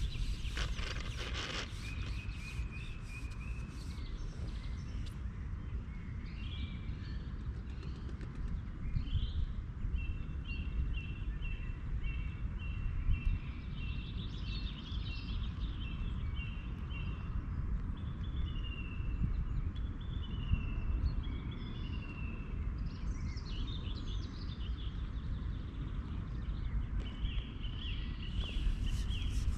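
Small birds chirping and singing over a steady low rumble. About ten seconds in there is a quick run of repeated short notes, followed later by a few gliding calls.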